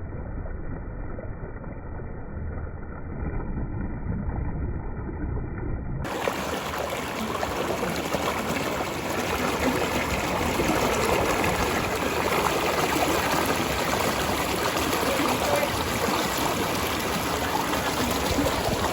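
Stream water flowing over rocks with a steady rush. It sounds muffled for about the first six seconds, then fuller and a little louder.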